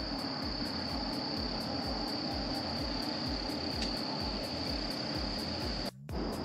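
Insects, crickets or similar, trilling in a steady high-pitched buzz with an even pulsing under it; the sound cuts out for a moment near the end.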